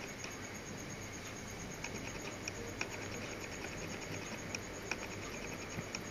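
Steady background hiss with a few faint, irregular clicks scattered through it.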